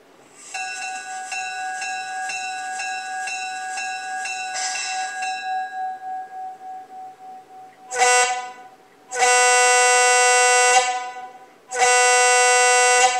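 Model locomotive sound decoder (LokSound 5) in an HO scale E9 playing its bell, which rings about twice a second for some four seconds and then dies away. The diesel air horn follows with one short blast and two long blasts.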